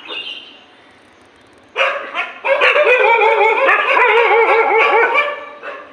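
Dogs fighting: two sharp barks, then about three seconds of loud, frantic overlapping barking and wavering yelps that die away near the end.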